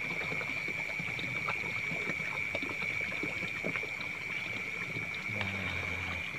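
Night chorus of frogs and calling insects: a steady high-pitched trill that never lets up, with small scattered clicks of handling and a brief low hum near the end.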